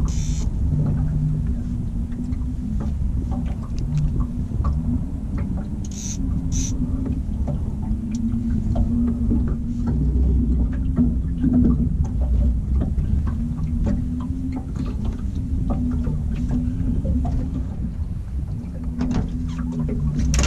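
Steady low hum of a boat's bow-mounted electric trolling motor holding the boat in place on spot-lock, its pitch wavering slightly. Two short clicks come about six seconds in.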